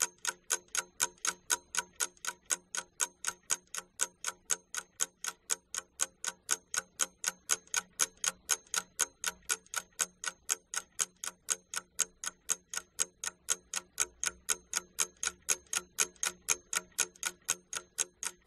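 Ticking clock sound effect used as a countdown timer for answering an exercise: fast, even, sharp ticks, several a second, that cut off abruptly.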